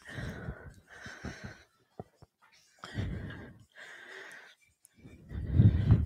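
A woman breathing hard, about five audible breaths in and out, as she catches her breath after a cardio workout segment.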